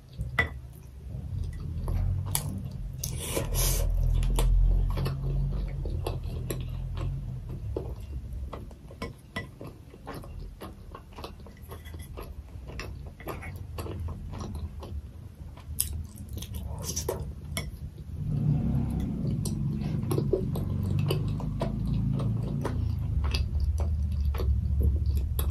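Close-miked eating sounds: chewing and slurping of fried noodles, with chopsticks clicking against plates.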